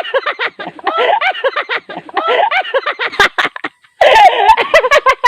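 Chicken clucking and cackling: rapid runs of short rising-and-falling calls in quick groups, with a few sharp clicks about four seconds in.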